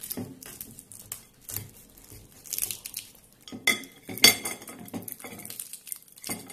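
A knife sawing through the crisp, thin warqa pastry of a baked chicken pastilla on a ceramic plate, with irregular scratchy crackling. The blade clinks against the plate twice a little past halfway, the second clink the loudest.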